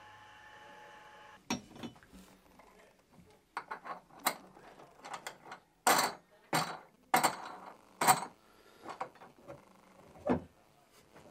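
The wooden hatch and metal latch of a large wooden tanning barrel being worked by hand: a series of sharp knocks and clunks, starting about a second and a half in, with the loudest knocks around the middle.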